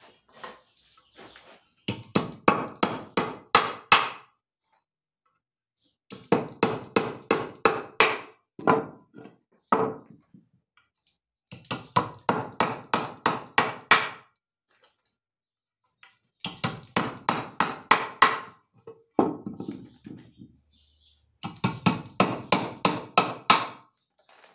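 Small hammer driving nails into the top board of a wooden box frame: five runs of quick strikes, about four a second, each run lasting a couple of seconds with short pauses between, every blow ringing slightly.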